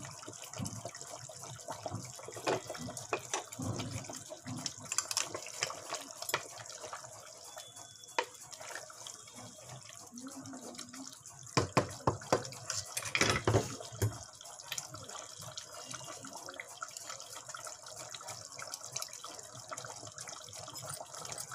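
Chicken curry in a thick tomato gravy simmering in an aluminium pot, bubbling with scattered pops over a steady hiss. A cluster of louder pops or knocks comes about twelve seconds in.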